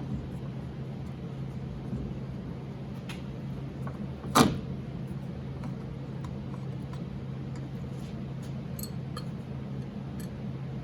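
Hand tools working the side-mirror screw on a car door: a few small clicks and one sharp metallic clack about four seconds in, over a steady low hum.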